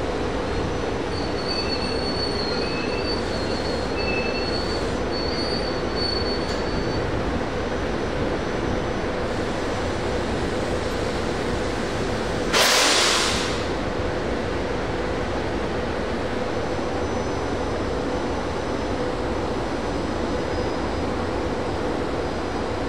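SEPTA Silverliner IV electric multiple-unit commuter train rolling slowly past, with a steady rumble of wheels on rail and a constant hum. There are short, thin wheel squeals in the first several seconds, and one brief loud hiss about halfway through.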